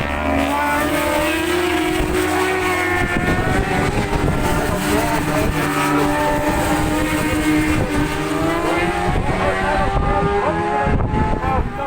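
Several superbike racing motorcycles running at high revs as they pass, engine pitches rising and falling through gear changes, with more than one engine heard at once.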